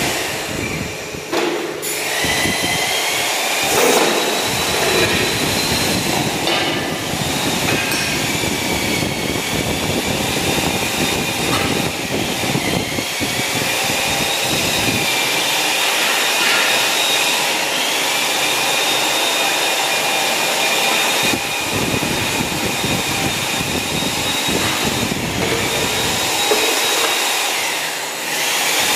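Electric power tool running steadily, a high whine that wavers slightly over a grinding hiss, easing briefly about a second in and again near the end.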